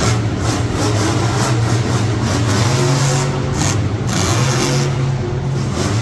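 Monster truck engine running loud and revving, a steady deep drone.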